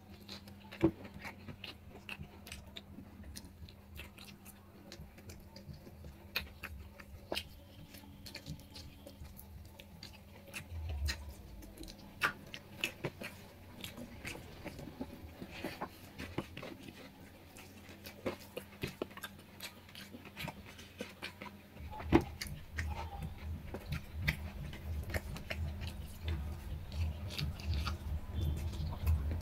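A person eating rice and curry by hand, heard up close: chewing and small clicks and smacks of mouth and fingers on the plate, over a faint steady hum. A low rumble comes in about three-quarters of the way through and grows louder.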